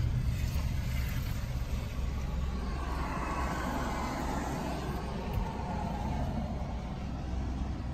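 Car engine and road noise heard from inside the cabin while riding: a steady low rumble.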